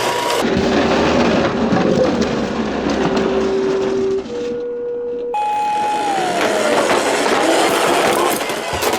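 Toy emergency-vehicle sirens over a loud, noisy clatter. Short held tones step between two low pitches, then about five seconds in a wailing siren starts that falls and rises again.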